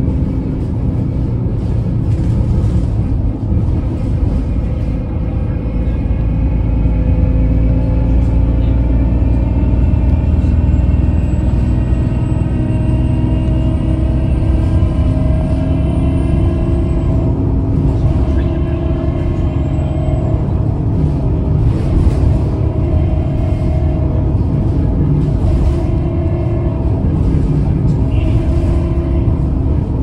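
Alexander Dennis Enviro300 single-deck bus heard from inside while under way: a steady, loud drivetrain and road rumble. Over it runs a whining tone that rises slowly as the bus gathers speed.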